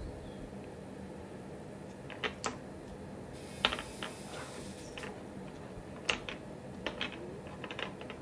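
Scattered light clicks of pearl and gold beads knocking together as the strung beadwork is handled and pressed on the table, over a faint steady hum.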